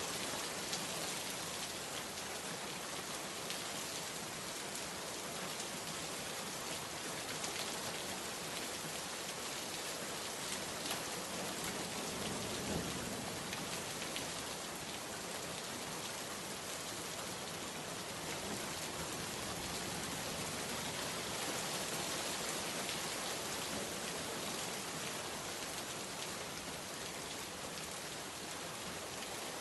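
Steady heavy rain falling on surfaces, a dense unbroken hiss with scattered louder drop hits.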